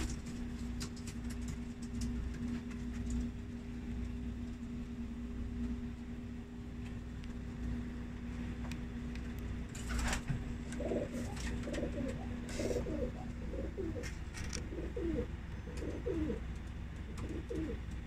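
Pakistani high flyer pigeons cooing in the loft, a run of short, low, rolling coos that starts a little past halfway and repeats about once or twice a second. A steady low hum and a few sharp clicks lie beneath them.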